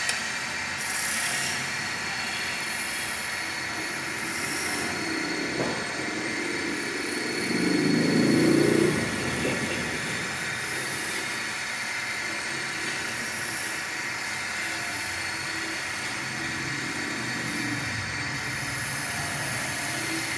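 Wood lathe running steadily with a chair-leg blank spinning: a steady hum with a faint high whine, as a turning chisel makes light cuts on the wood, with a short burst of cutting hiss about a second in. A louder low rumble swells for about a second and a half around eight seconds in.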